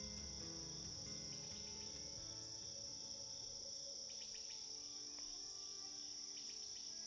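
Crickets chirring steadily at a high pitch, faint, with soft sustained background music underneath.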